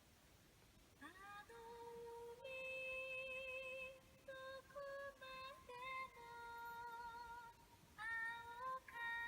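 Music played back by a repaired Hitachi Lo-D DAD-800 CD player, starting about a second in: a melody of long held notes that sounds like a singing voice. The player reads the disc cleanly after its pickup was cleaned and adjusted.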